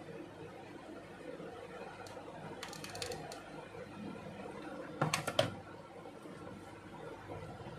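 Light clicks and taps from handling small cardboard strips and a hot glue gun on a tabletop, over a faint steady hum. A short run of light clicks comes about three seconds in, and a louder cluster of sharp clicks about five seconds in.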